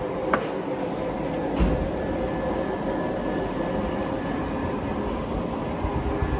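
Chevrolet Omega 4.1 straight-six idling steadily through a newly fitted sport exhaust with a large muffler. Two short knocks come early, the first about a third of a second in and the second about a second and a half in.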